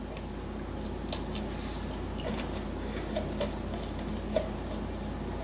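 A steady low hum with a faint higher tone above it, and scattered faint clicks and rustles here and there.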